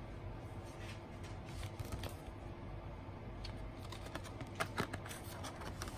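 Cardboard CD sleeves being handled and shuffled by hand: light, irregular taps and scrapes of card on card, with a quick cluster of sharper clicks about five seconds in.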